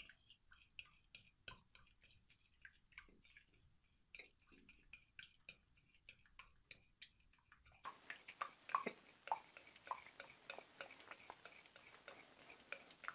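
Clear glue and water being stirred together in a container for slime: faint, irregular clicks and taps of the stirring utensil against the container, a few each second.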